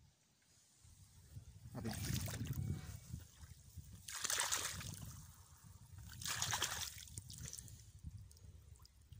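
Shallow water in a flooded rice paddy sloshing and splashing in three separate bursts about two seconds apart, over a steady low rumble.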